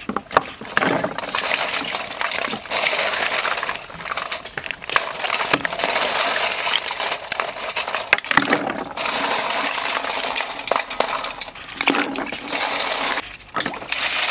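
Water sloshing in a stainless steel bowl as hands scrub a pile of freshwater snails with a scouring pad, the shells clicking and clinking against each other and the bowl. There are two short pauses, around the middle and near the end.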